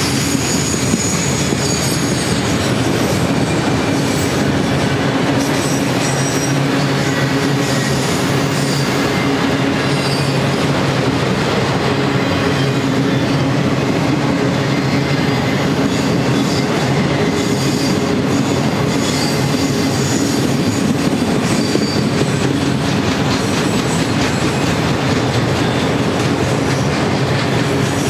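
Auto-rack freight cars rolling past on steel rails: a steady, loud noise of wheels on track, with brief faint high wheel squeals now and then.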